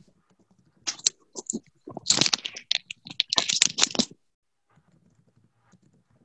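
Computer keyboard typing in irregular quick bursts of keystrokes, stopping about four seconds in.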